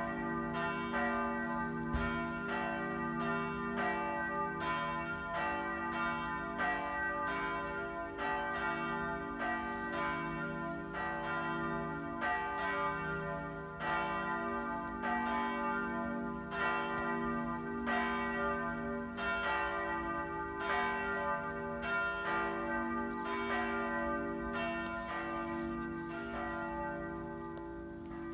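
Two large church bells ringing together: the small bell, cast in 1890 by Bergholtz bell foundry (about 1200 kg), and the 18th-century middle bell (about 1955 kg). This is the Swedish sammanringning that calls the congregation to High Mass. The strokes come in a steady run of about one and a half a second, each one ringing on under the next.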